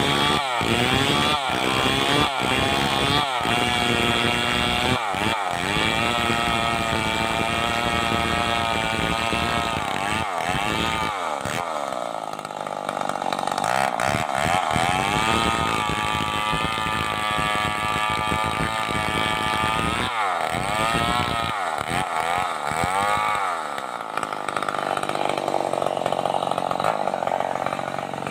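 Stihl 038 two-stroke chainsaw running hard, revved up and down in quick throttle blips over the first several seconds and again twice later, in between held at high revs for longer stretches.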